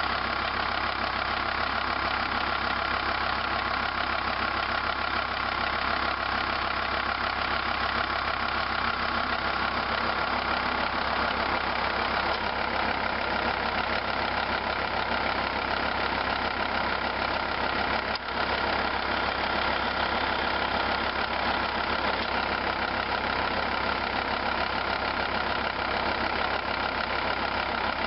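Volvo V70 2.5D five-cylinder turbodiesel idling steadily, heard close to the belt-driven A/C compressor. About ten to twelve seconds in, the compressor's magnetic clutch disengages and the steady tone of the running changes slightly. The clutch cycles on and off more often than it should, a fault the owner later traces to the compressor losing its oil.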